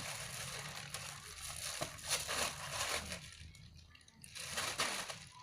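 Packaging crinkling and rustling as it is handled, in several irregular bursts that fade toward the end.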